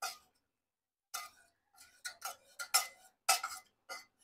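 Steel ladle mashing cooked whole green moong dal in a pressure cooker, knocking and clinking against the pot in an irregular series of short, sharp strokes, several packed together in the second half.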